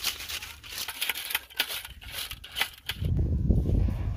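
Crisp fried potato fries rustling and clicking against each other as they are shaken in a metal colander. About three seconds in, this gives way to a loud low rumble.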